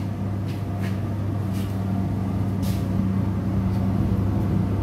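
Fume hood extraction fan running with a steady low electrical hum. A few light knocks come from a plastic beaker being handled.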